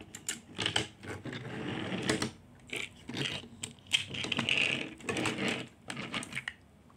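Plastic toy train pieces being handled and coupled: a motorized Thomas & Friends engine and its two coaches clicking and clattering together irregularly as their plastic hook couplers are fitted, stopping a little before the end.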